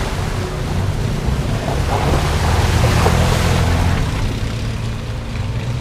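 Off-road 4x4's engine running as it drives through a river crossing, with water splashing around it; it grows a little louder near the middle.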